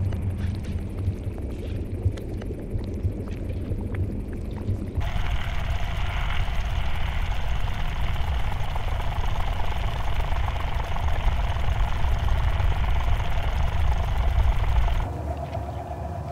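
Ambient sound-design track for a molecular animation: a steady low rumbling noise. It changes character abruptly about 5 seconds in, when a brighter hiss joins, and again about 15 seconds in, when that drops away and a faint steady tone comes in; each change falls on a cut between shots.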